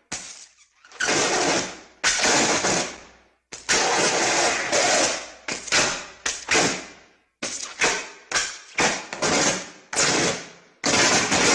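Classic Star Wars lightsaber clash and strike sound effects: a string of sudden hits, each fading out over a second or so. A quick flurry of short strikes comes in the second half, and a longer, sustained clash comes near the end.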